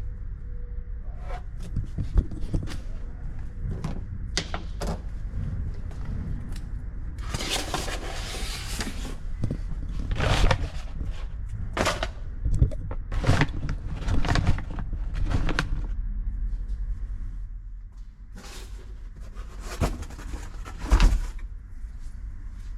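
Hands-on work sounds: a string of sharp knocks and clicks, with a few longer scraping noises, the longest lasting about a second and a half, over a steady low hum.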